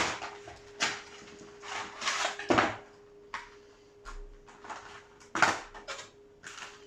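Handling noise from unpacking trading-card packaging: several separate clicks and knocks and a short rustle, over a faint steady hum.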